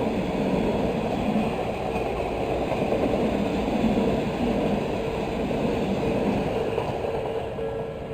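Odakyu 1000 series electric train passing over a level crossing with a steady rumble of wheels and motors. The crossing's warning bell keeps ringing under it and stands out again near the end as the train noise fades.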